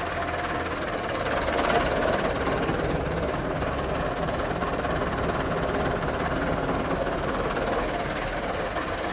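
Landini tractor's diesel engine running steadily, a little louder about two seconds in.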